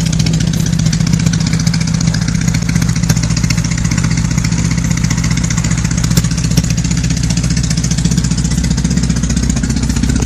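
Motorcycle engine idling steadily, its low, even firing pulses holding one pitch.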